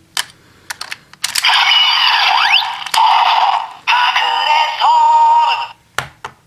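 Plastic clicks of the KakureSoul Ryusoul being loaded and worked in a Ryusoulger roleplay toy, then the toy's electronic sound effects and recorded voice call through its small, tinny speaker, with sweeping tones and short breaks. More clicks come near the end.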